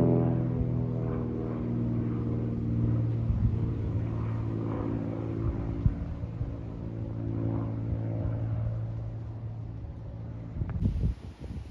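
Aircraft flying overhead: a low engine drone whose pitch sinks slowly as it passes, fading away toward the end. Wind buffets the microphone in the last second.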